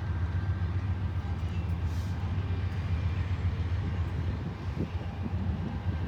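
Distant ore train running along the tracks: a low, steady rumble.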